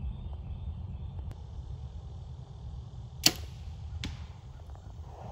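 A bow being shot: the string's sharp snap a little over three seconds in, then a fainter smack under a second later as the arrow hits the distant target. A steady low rumble runs underneath.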